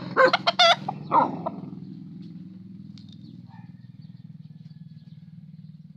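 A dog barking in a quick run of short, sharp barks in the first second and a half, angry at a rooster close by. A steady low hum runs underneath.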